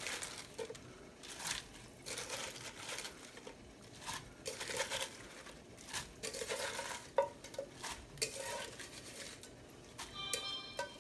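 Chinese cabbage being put into a pot of boiling broth. The leaves rustle and a utensil clinks against the pot in short, irregular bursts.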